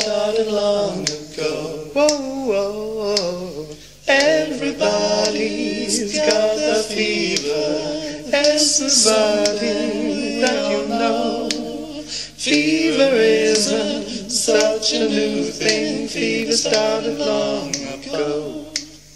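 Male vocal group singing a cappella in close harmony, the voices held with vibrato, broken by short pauses about four and twelve seconds in. Sharp clicks keep time under the voices.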